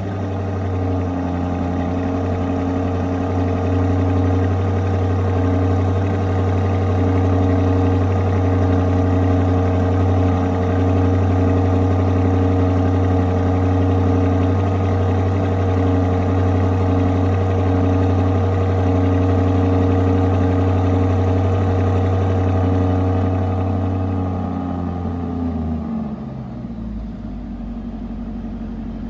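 Lamborghini Urus Performante's twin-turbo 4.0-litre V8 idling through its exhaust at a raised, steady cold-start idle. About 25 seconds in, the idle drops to a lower, quieter note as the engine settles.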